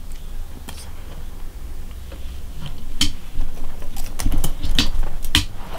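Wooden lace bobbins clicking against each other as they are picked up, crossed and twisted to work a stitch on a lace pillow: a string of irregular light clicks, coming thicker after about four seconds.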